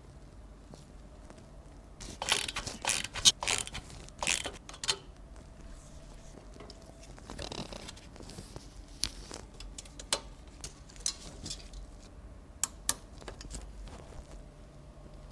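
Hands handling computer parts and packaging: irregular clicks, taps and short rustles, a cluster of louder ones about two to five seconds in and scattered clicks later.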